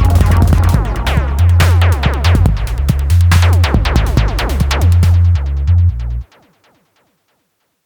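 Electronic background music with a drum-machine beat, pulsing bass and synthesizer sweeps, which stops suddenly about six seconds in.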